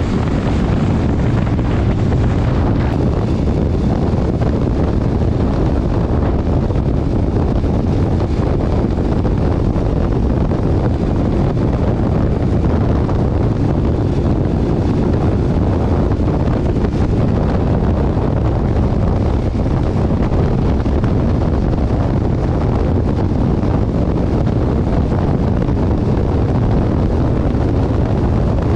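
Steady wind roar buffeting the microphone of a camera on a motorcycle at road speed, with the motorcycle engine running evenly underneath.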